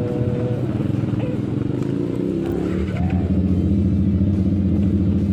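Yamaha R15 V3's 155 cc single-cylinder engine breathing through an aftermarket R9 racing exhaust, running at low revs with a fast, even pulse. It gets louder about three seconds in as the bike pulls away.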